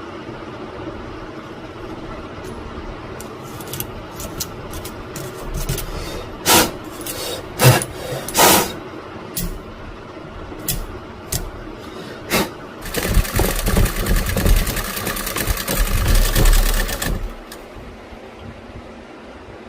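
Sewing machine being handled, with a series of sharp clicks and knocks, then running fast with a rapid, even rhythm for about four seconds before stopping suddenly.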